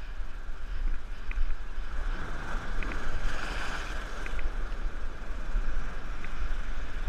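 Sea surf breaking and washing around rocks, with wind rumbling on the microphone; one wave surge is loudest from about two and a half to four and a half seconds in.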